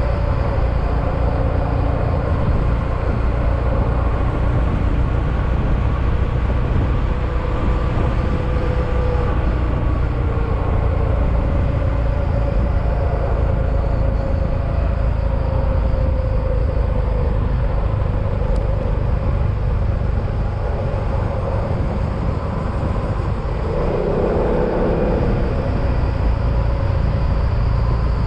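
Yamaha XMAX scooter on the move: engine running under steady road and wind noise, its tone drifting gently up and down with speed, with a brief swell about 24 seconds in.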